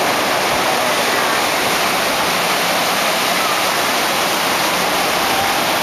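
Ocean surf breaking and washing up the beach: a loud, steady hiss of moving water.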